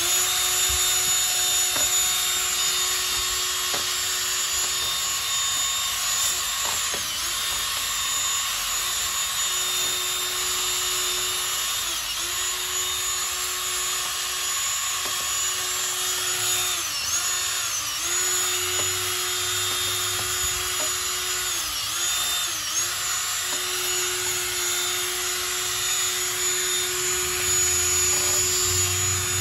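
Cordless DeWalt 20V drill spinning a drill brush attachment against a wet alloy wheel. The motor runs with a steady whine over the hiss of the scrubbing bristles, and its pitch dips briefly several times as the motor slows under the brush's drag.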